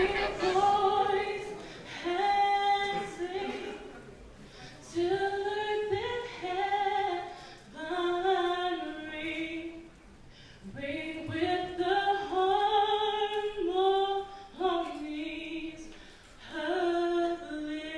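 Unaccompanied singing, a female voice leading: a slow melody sung in long held notes, phrase by phrase, with short breaths between phrases.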